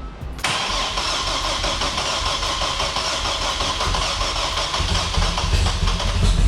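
Turbocharged Trailblazer 4200 inline-six engine starting up. Engine noise comes in suddenly under a second in, then grows louder and deeper about five seconds in as it runs.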